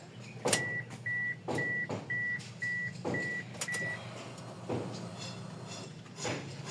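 A car's electronic warning chime beeping seven times, short even beeps at one high pitch about half a second apart, with a few sharp clicks and knocks around them.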